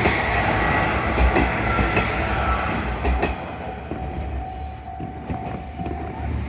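1500 series two-car diesel railcar running over the rails, with a few sharp wheel clicks over rail joints in the first half, the sound dying away as the train moves off.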